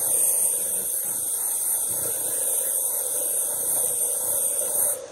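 One/Size On 'Til Dawn makeup setting spray misting: a steady high hiss that cuts off suddenly just before the end.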